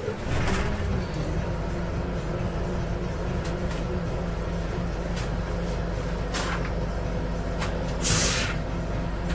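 Scania Citywide CNG city bus idling with its five-cylinder gas engine, heard inside near the driver. Short hisses of compressed air come about half a second in and near six and a half seconds. A louder, longer air hiss follows about eight seconds in.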